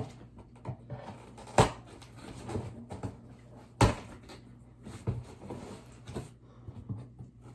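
Cardboard box being handled while its tape is cut open: two sharp knocks, one about one and a half seconds in and another about four seconds in, with lighter taps and rustling between them.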